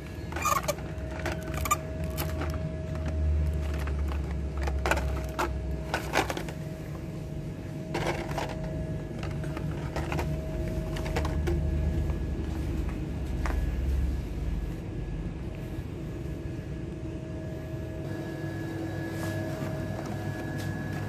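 Plastic-and-cardboard Hot Wheels blister packs clicking and rattling irregularly as they are flipped through on metal display hooks. Under them are a low rumble and a faint steady hum.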